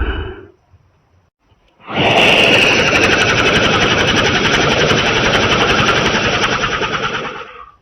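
Monster atomic-breath sound effect: a loud, dense rattling blast with crackling on top, starting about two seconds in and lasting about five and a half seconds before fading out.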